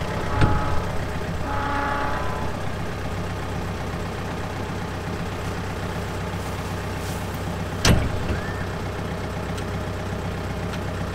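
John Deere 4052 compact tractor's diesel engine idling steadily, with one sharp metal clank about eight seconds in as the lift arm and cutter hitch are handled.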